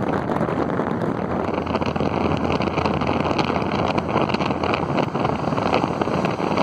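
Wind rushing over the microphone and road noise of a car travelling at highway speed, a steady loud rush with scattered buffeting crackles.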